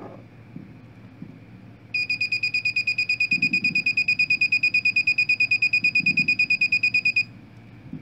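Small buzzer driven by a 555 timer circuit with a 680 µF timing capacitor, giving a high-pitched electronic beep that pulses rapidly and evenly. It starts abruptly about two seconds in and cuts off suddenly about five seconds later, when the battery is disconnected.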